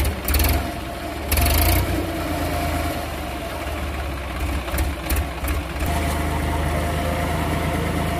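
Massey Ferguson tractor's three-cylinder diesel engine running under load while the tractor is bogged in deep mud, with two brief louder surges in the first two seconds.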